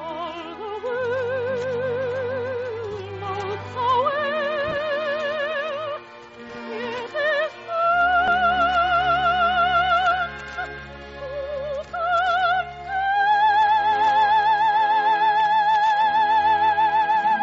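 Operatic soprano singing with wide vibrato over an orchestra, climbing to a long high note held through the last few seconds.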